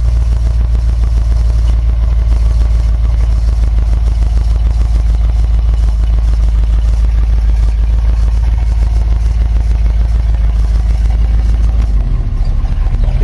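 1977 Chevrolet K10 pickup's engine running as the truck is driven, heard from inside the cab: a loud, steady low rumble with a rapid even pulse, which eases near the end.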